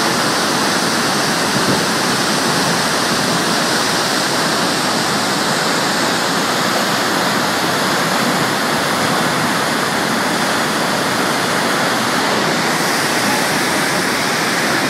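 Fast white water rushing down a dam's concrete spillway chute: a loud, steady rushing noise with no change throughout.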